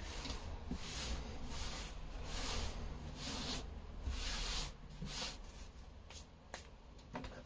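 Hands rubbing together and being wiped to take off barrier cream: a run of soft swishing rubs about twice a second that die away after about five seconds.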